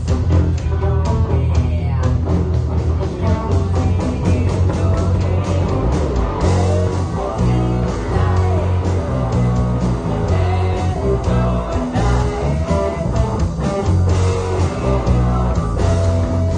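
A Telecaster electric guitar and an electric bass playing a song together in a rock style, with a man singing over them.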